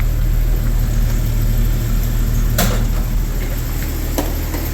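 Jeep Cherokee XJ's freshly rebuilt engine running steadily at low speed, a constant low hum, with one sharp click about two and a half seconds in.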